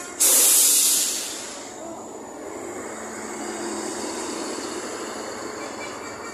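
Heavy tour bus going past close by, with no horn playing: a sudden loud hiss about a quarter second in fades over a second or so into steady rushing engine and road noise.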